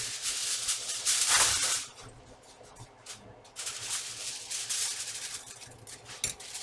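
A brown paper package being handled, rustling and rattling in bursts, loudest about a second in and again midway.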